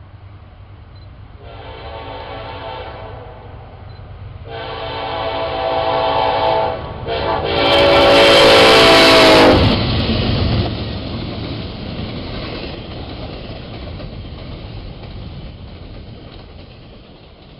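Locomotive air horn sounding three blasts, the second and third longer and louder, the last dropping in pitch as the locomotive passes. The train then rumbles by and fades away.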